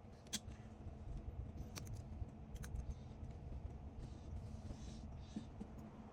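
Faint scattered small clicks and ticks of precision-screwdriver work on a MacBook Air's screws, over a low steady rumble of background noise.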